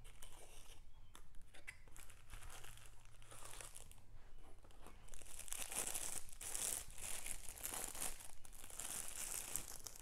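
Plastic bag of small decorative stones crinkling as it is handled, getting louder and denser about halfway through. Before that, softer rustles and clicks of packaging being handled.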